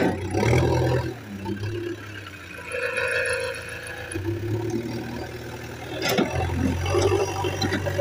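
JCB backhoe loader's diesel engine running, its low hum swelling and easing as the machine works. A couple of sharp knocks come near the start and again about six seconds in.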